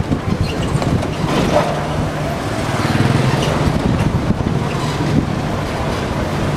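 City street traffic: a steady engine hum and road noise from cars and motorbikes, heard from a vehicle moving along the street.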